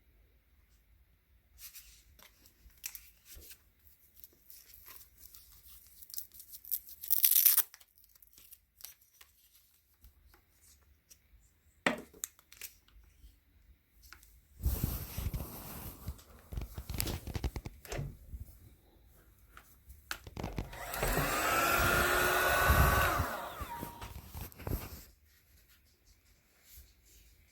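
Handling clicks and rustling, then a hair dryer brush's motor blowing twice in short runs, a few seconds each. In the second run its whine rises as it spins up and falls away as it winds down.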